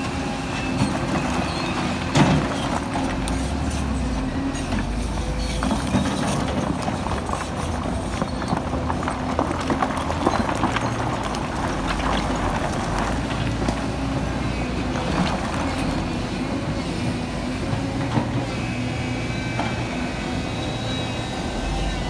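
Heavy earthmoving machine's diesel engine running steadily under load, with repeated metallic clanking and knocks of stone and steel tracks throughout.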